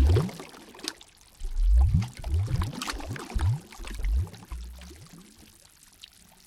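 Water gurgling and glugging in a run of low, upward-sliding gulps with light splashes, like water sloshing into a hollow and pouring out again. It dies away near the end.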